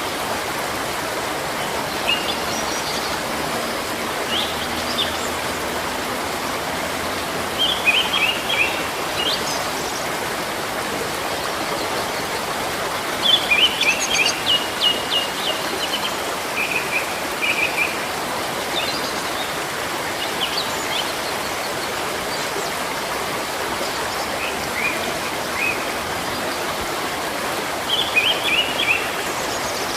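Running water from a stream, a steady rushing, under songbirds chirping in short scattered bursts, with the busiest run of quick chirps about halfway through.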